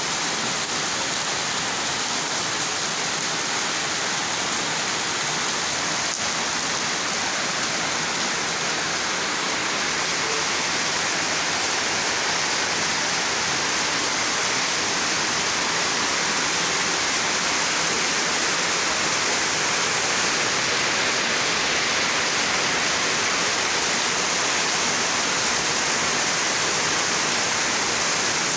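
Steady rain falling on corrugated metal roofing sheets and a wet street, an even continuous hiss.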